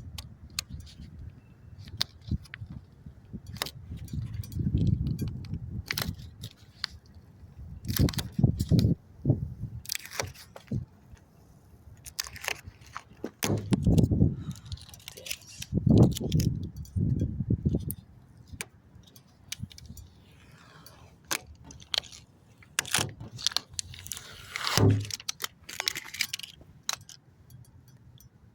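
Irregular clicks, light rattles and muffled knocks and rubbing from hands-on work removing parts from a car's exterior, with close handling noise on the recording phone.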